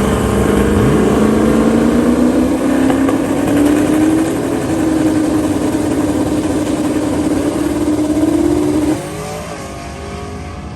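Turbocharged 5.3 LS V8 drag car engine running hard, its pitch climbing slowly for about nine seconds, then dropping away suddenly as it comes off the throttle.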